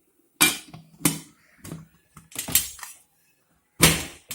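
Metal steamer pot and lid clanking: four sharp knocks, each ringing briefly, the last one the loudest.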